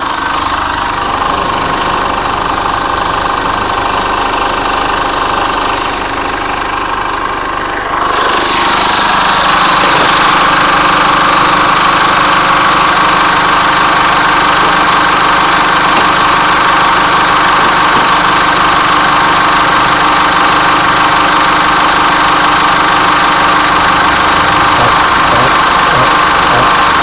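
Chevrolet S10 2.8 four-cylinder turbodiesel idling steadily, heard from the open engine bay. About eight seconds in the sound steps up, louder and brighter.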